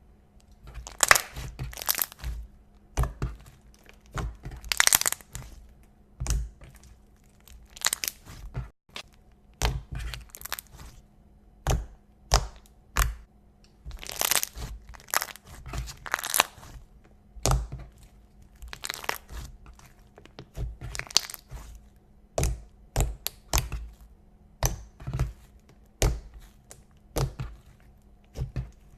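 Slime being squeezed and pressed by hand, giving sharp crackling bursts at an irregular pace of about one a second, some in quick clusters.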